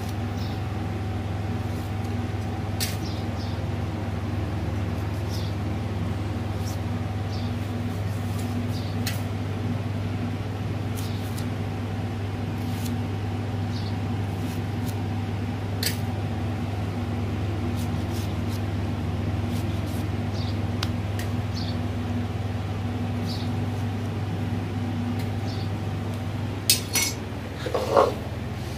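A steady low hum, with faint scattered clicks of a knife cutting tomatoes by hand. Near the end, a few metal clinks and clanks of an aluminium cooking pot being handled.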